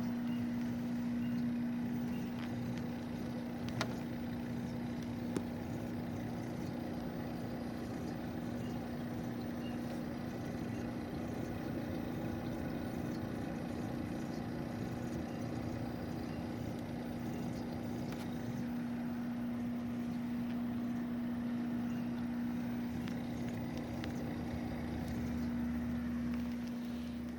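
Mitsubishi MJ-EV250HM 25-litre dehumidifier's inverter compressor running in energy-saving auto mode, giving off a steady low droning hum with one strong held tone. This is an abnormal resonance noise, very loud and very unpleasant in the owner's words.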